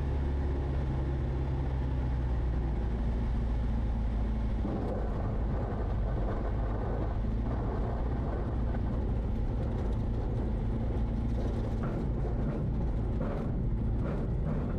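Light aircraft's propeller engine running steadily at low power on final approach. About four or five seconds in, a rougher rumble joins it, as the wheels touch down and roll out over rough ground, with a few knocks near the end.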